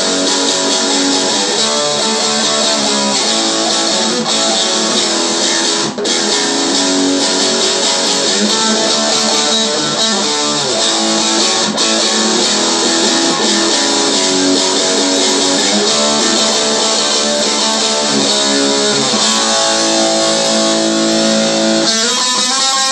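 Electric guitar playing a blues riff in A. Near the end a run of notes climbs in pitch.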